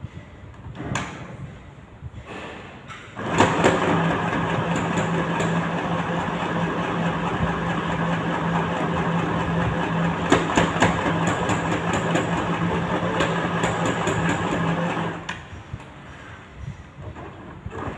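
Sewing machine running steadily, stitching a seam, for about twelve seconds: it starts about three seconds in and stops near the end. A couple of faint knocks come before it starts.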